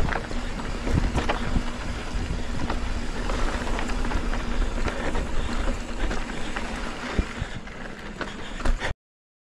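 Mountain bike riding over a dirt trail: wind buffeting the microphone over the rattle and knocks of the bike bouncing on rough ground. The sound cuts off suddenly near the end.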